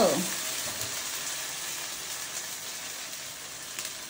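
Chicken and spice masala frying in hot oil in a pan: a steady sizzling hiss that slowly grows quieter.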